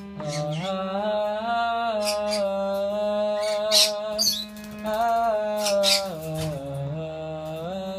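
Harmonium playing a slow melody of held notes over sustained lower notes, the pitch stepping every second or so. Short, high chirps cut in a few times.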